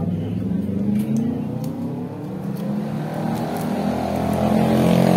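A motor vehicle engine running and revving, its pitch and loudness rising slowly in the second half.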